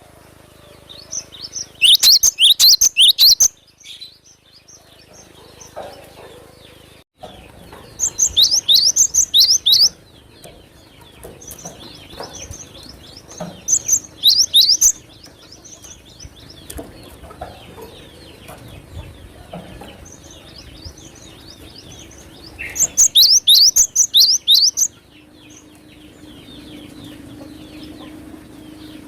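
Cinereous tit (gelatik batu) singing: four loud bursts of rapid, sweeping high chirps, each a second or two long, with pauses between them.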